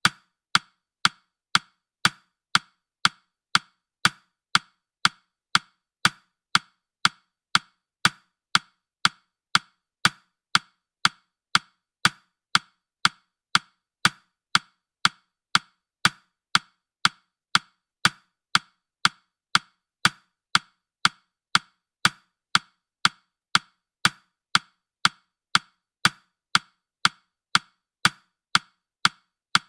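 Clock ticking sound effect of a countdown timer: sharp, evenly spaced ticks, about two a second.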